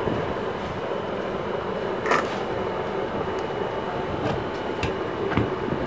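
Steady background rumble of a workshop, with a few light clicks from handling on the bench, most of them in the second half.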